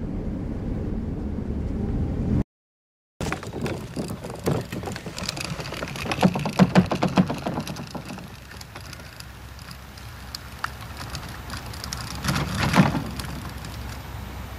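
Briefly a steady low hum inside a car, then after a cut a plastic kayak on a wheeled trolley rattling and knocking as it is pulled over grass, in a run of clicks that is loudest twice.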